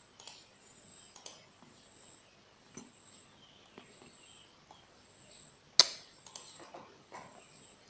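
Faint, scattered computer mouse clicks over low room hiss, with one sharp, louder click nearly six seconds in.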